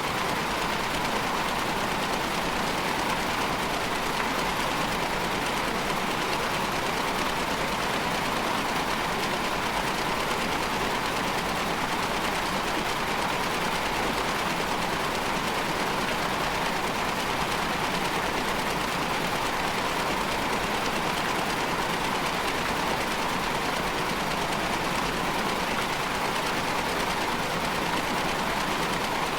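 Steady, unchanging machine-like noise drone, even in level, with a stronger hiss-like band in the middle of the pitch range and no rhythm or breaks.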